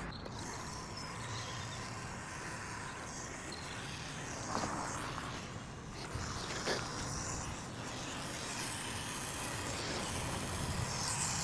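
Steady outdoor background of distant road traffic, with two light knocks about four and a half and almost seven seconds in.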